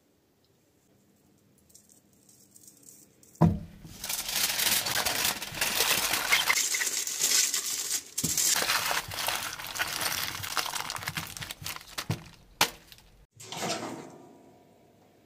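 Aluminium foil crinkling and crumpling as gloved hands fold it up around seasoned garlic cloves. It is loud and runs for about nine seconds after a sharp knock about three and a half seconds in. It ends with a couple of sharp clicks and then fades.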